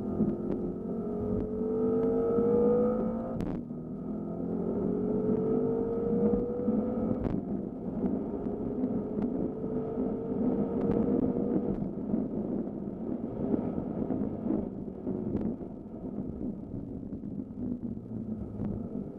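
BMW M5 F10's twin-turbo 4.4-litre V8 heard from inside the cabin, accelerating hard: the engine note climbs in pitch, drops at upshifts about three and a half and seven seconds in, climbs again, then eases off after about twelve seconds.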